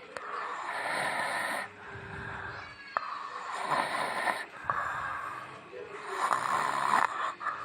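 A person snoring: a run of long, noisy snore breaths in and out, about one every second and a half.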